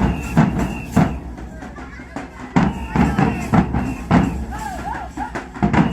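Dhak drums beaten with sticks in bursts of fast strokes, each burst lasting a second or so with short lulls between, over a high metallic ringing.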